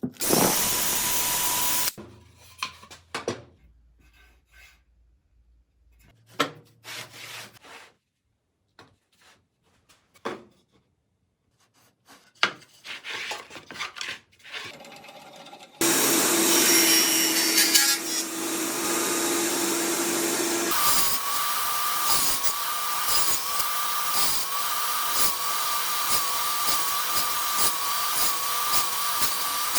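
Table saw cutting wood. The first half holds a short loud burst and then scattered knocks and rubbing of wood being handled. From about halfway the saw runs steadily through the cut, its tone rising about five seconds later and carrying a steady run of small ticks.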